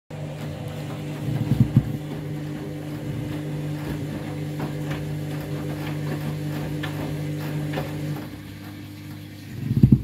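Candy front-loading washing machine on an intermediate spin: the drum spins with a steady motor hum and a few knocks and thumps from the load, then the motor cuts out about eight seconds in and the drum slows, with a heavy thump near the end. The drum is full of suds, and the early stop may be a suds lock.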